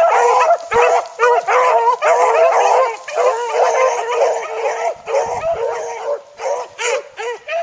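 A pack of four beagles baying together as they run a track, many overlapping cries at once. The chorus thins to more spaced, separate calls after about five seconds.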